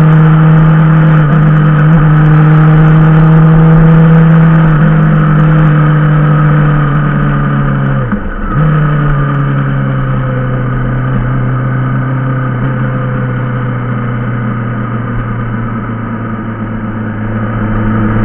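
Yamaha motorcycle engine, heard from onboard, running steadily under light throttle with its pitch slowly easing down. About eight seconds in, the revs drop sharply and come back at a lower pitch.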